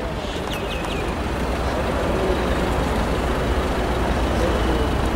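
Steady low rumble of road vehicles and engines running, with a few faint short high squeals about half a second in.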